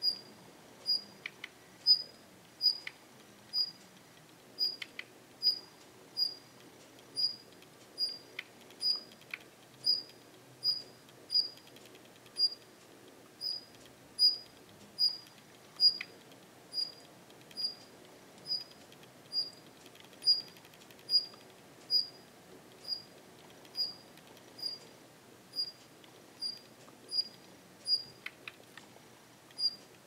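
Female Daurian redstart calling: a thin, high pip repeated steadily about once a second, with a few softer, lower ticks in between.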